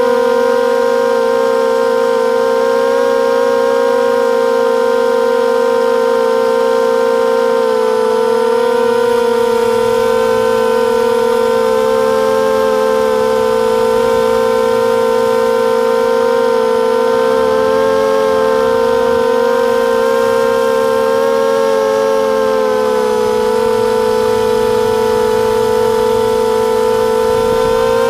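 Brushless motors and propellers of a 250-size FPV racing quadcopter whining steadily, the pitch wavering slightly and dipping briefly a few times as the throttle changes.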